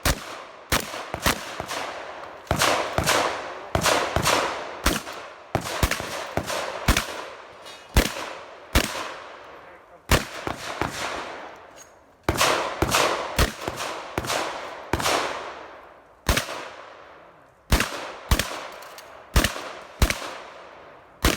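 Remington 870 pump-action shotgun firing a fast string of shots during a stage run, one to two shots a second in short groups with brief pauses between them. Each shot is a sharp report that rings out and fades.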